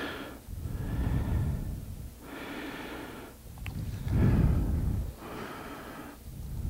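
A man breathing audibly in and out close to the microphone, about one breath every second or so, with a faint click about three and a half seconds in.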